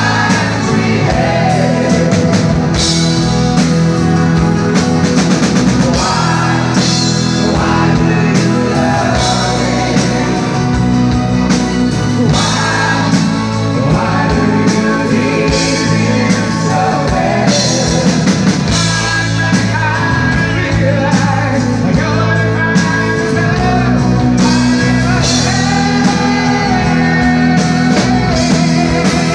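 Live band playing a song: a man singing lead over strummed acoustic guitar, bass and a drum kit keeping a steady beat.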